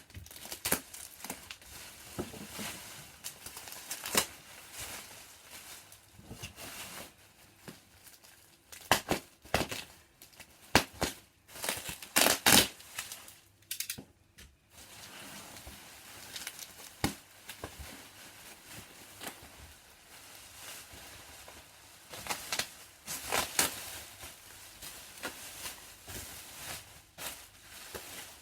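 Protective packaging being unwrapped by hand: irregular crinkling, rustling and tearing, with louder clusters about a third of the way in and again near the end.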